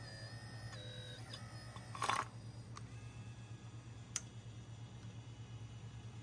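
Scale RC hydraulic excavator (Volvo EC160 model) running: a steady low pulsing hum from its hydraulic pump with whining tones that shift in pitch during the first second as the hydraulics work. About two seconds in comes a short loud scrape or clunk, followed by two sharp clicks.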